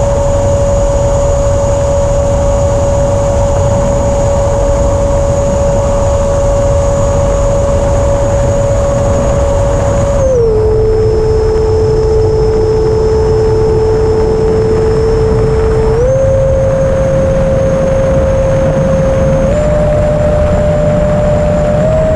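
Electric ducted fan of an FMS Futura 80 mm 6S RC jet whining at a steady high pitch over a loud rush of wind noise. Its pitch drops about halfway through as the throttle is eased back, then steps up again in stages toward the end as power is added.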